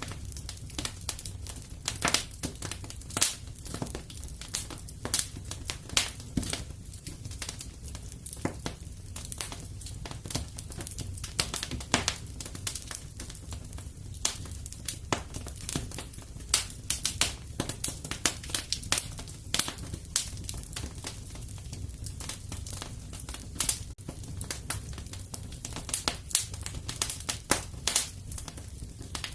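Wood fire in a fireplace crackling steadily, with many irregular sharp pops and snaps over a low, even rumble of flame.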